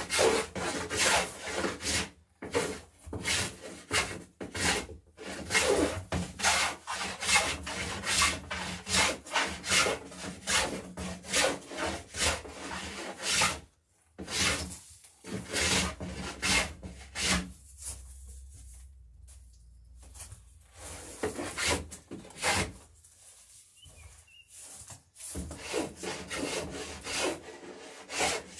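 Hand plane cutting a bevel along the edge of a wooden garboard plank: short scraping strokes of blade on wood, one or two a second. The strokes stop briefly about halfway through, come sparser and softer for a while, then pick up again near the end.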